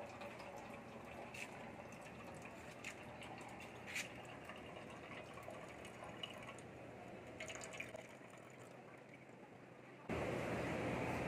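Faint water trickling and dripping, with a few sharp drips, from the just-filled cold-water reservoir of a thermoelectric generator. A louder steady rushing noise starts near the end.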